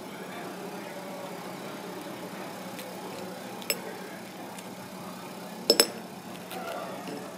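Goose barnacle shells clicking and cracking as fingers pull a cluster apart: one click about halfway through, then two sharp cracks close together near the end, over a steady low hum.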